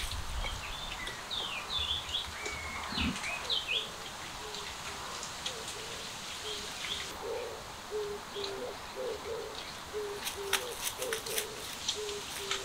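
Outdoor birdsong: small birds chirping at first, then a low call repeated about twice a second, with a few sharp clicks about ten seconds in.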